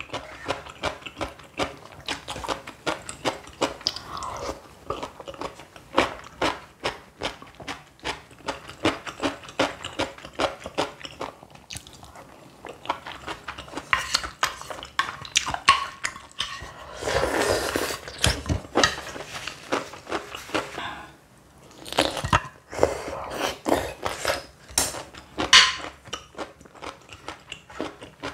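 Close-up eating sounds: a rapid run of crunching bites and chewing, with a longer, noisier stretch about 17 seconds in.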